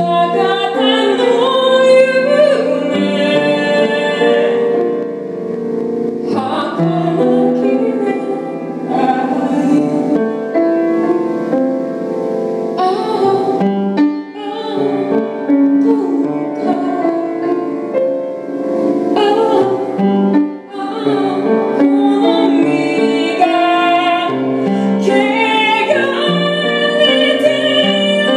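A woman singing an original song in a Japanese folk-tinged style, accompanying herself on piano.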